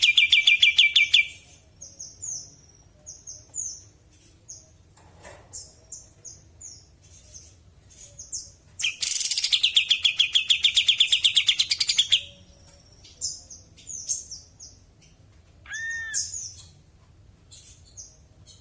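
Kapas tembak songbird singing: a loud, fast rattling trill at the start and another from about 9 to 12 seconds in, with short, sharp, high downslurred notes repeated in between.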